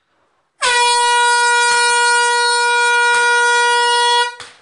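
A horn sounding one long, steady, loud blast of about three and a half seconds, starting about half a second in and cutting off sharply near the end. Two short knocks sound through it.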